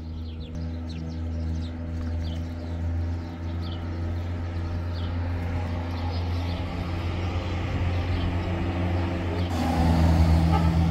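Small electric surface water pump running with a steady hum, pushing water through a garden hose. A rush of water gets louder near the end.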